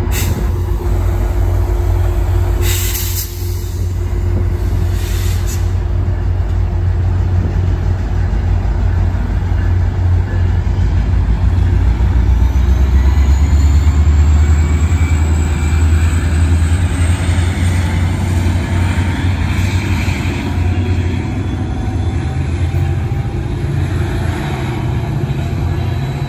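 Tri-Rail F40PH diesel-electric locomotive throttling up as the train pulls out of the station: a loud, steady low engine drone that swells about halfway through, with a thin rising whine above it. Two short bursts of air hiss come a few seconds in.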